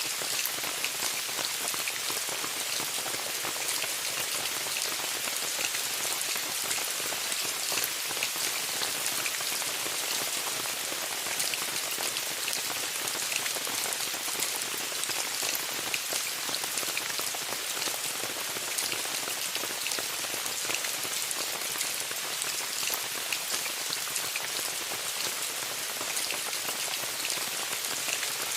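Steady rain pattering on a tent, a dense even hiss full of small individual drop taps.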